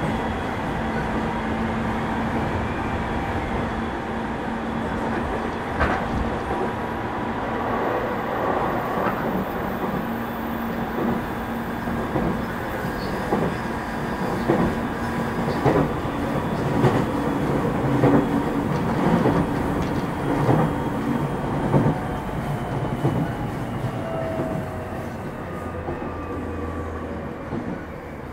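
Running sound inside a JR East 209 series 500 subseries electric train car: a steady rumble with a motor tone, and a run of wheel clacks over rail joints through the middle. Near the end the sound gets quieter and the motor whine falls in pitch as the train slows.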